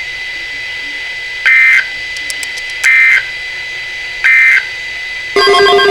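Emergency Alert System end-of-message data bursts: three short, shrill digital squawks about a second and a half apart, closing a National Weather Service severe thunderstorm warning. A new steady pitched tone starts just before the end.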